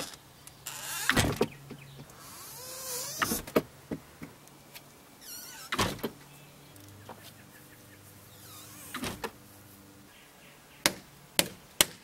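Wooden shed doors being swung and caught by golf-ball catches snapping into PVC pipe clamps: scattered knocks and sharp clicks, three in quick succession near the end, with a brief hiss and a few faint squeaky glides.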